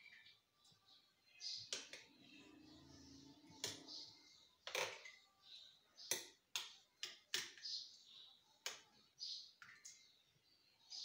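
Spoon clinking and scraping against the glass trifle dish and the custard bowl while custard is spread: a series of sharp clicks, several in quick succession midway, with soft scraping between.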